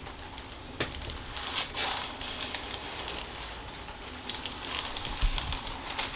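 Soft rustling and scattered faint crackles, like clothing and a treatment-table cover shifting as a body moves, with a short low thump about five seconds in.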